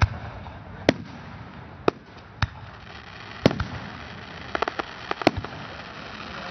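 Aerial firework shells bursting: six sharp bangs at irregular intervals of roughly a second, with a quick run of smaller crackling pops about four and a half seconds in.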